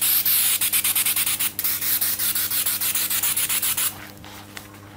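Aerosol can of 3M Hi-Strength 90 spray adhesive spraying in a steady hiss with a fast crackle of spitting, cutting off about four seconds in.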